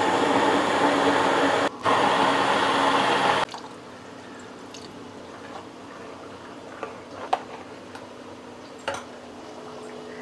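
Immersion hand blender running in a wet tomato chutney in an aluminium pot, its motor and the churning paste cutting out for a moment about two seconds in, then stopping suddenly after about three and a half seconds. After that, a few light clicks of a spoon stirring the pureed paste against the pot.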